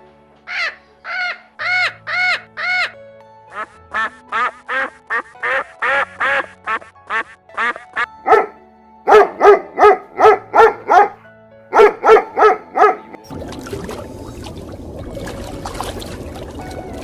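A duck quacking in repeated runs of short calls, the loudest run about nine to thirteen seconds in, over background music. A steady hiss of noise takes over near the end.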